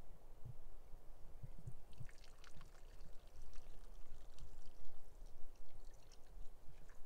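Footsteps through wet, twiggy forest undergrowth: a few soft thuds, then a run of small crackles and wet squelches.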